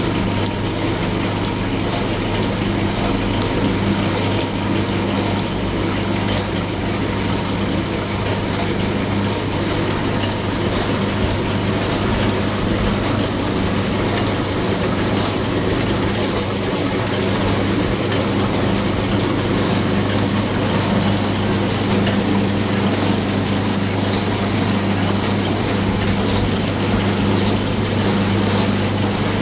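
Automatic bag-packing machine running, with a vibratory bowl feeder, filling and heat-sealing small sachets of resin diamond-painting drills. It makes a steady hum with light, regular clicking from the jaws as each bag is sealed and cut.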